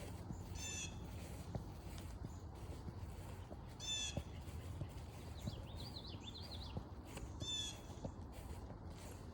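A bird gives a short, harsh cawing call three times, a few seconds apart. Between the second and third calls a smaller bird twitters briefly.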